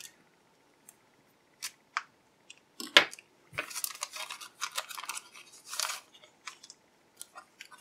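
A hobby knife slitting the tape on a thin plastic bag, with scattered small clicks and a sharp click about three seconds in, then the bag crinkling and rustling as a stack of cardstock file cards is slid out of it.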